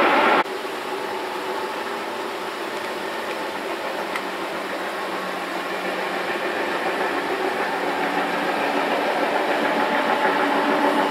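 A louder rumbling noise cuts off suddenly about half a second in. Then an engine hums steadily and slowly grows louder, as if drawing nearer.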